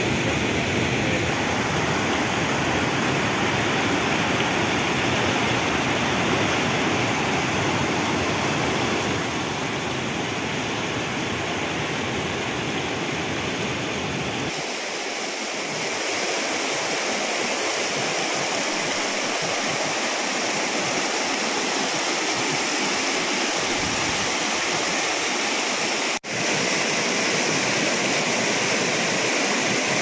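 Steady rush of water from a rain-swollen waterfall and rocky cascades. About halfway through the deep rumble drops away, leaving the lighter splash of water over rocks, and the sound cuts out for an instant near the end.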